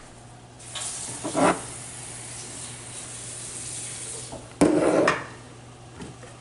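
Curry chicken sizzling in a covered pot, a steady hiss, while seasoning bottles and jars are handled on the counter; a loud knock about four and a half seconds in as a jar of jerk seasoning is set down.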